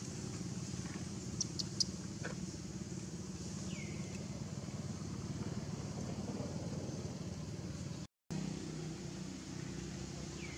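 A motor vehicle engine running steadily with a low hum. A couple of short, high, falling squeaks come about four seconds in and near the end, and the sound drops out for a moment just after eight seconds.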